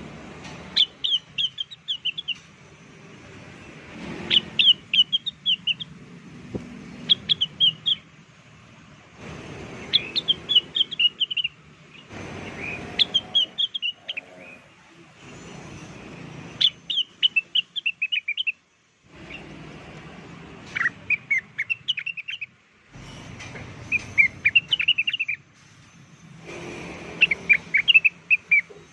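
Blue-winged leafbird (cucak wilis) song used as a lure call: short bursts of rapid, high chirping notes, repeated every two to three seconds.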